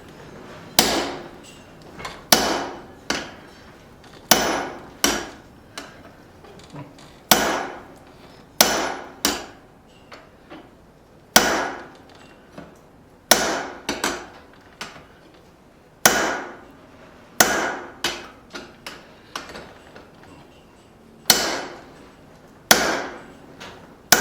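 Hand hammer driving a hole punch into a hot steel bar on an anvil: sharp ringing blows every one to two seconds, each often followed by lighter taps.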